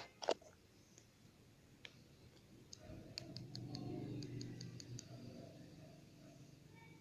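Small plastic slime-kit containers being handled: a sharp click just after the start, then a quick run of about ten light clicks near the middle over soft rubbing handling noise.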